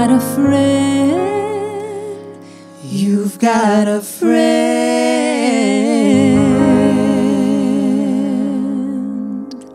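Piano accompanying a man and a woman singing a duet, with vibrato on the sung notes. It closes on a long held note that fades out near the end.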